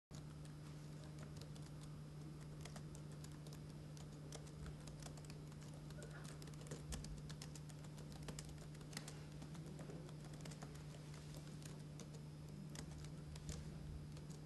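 Typing on a laptop keyboard: irregular, soft key clicks over a steady low hum.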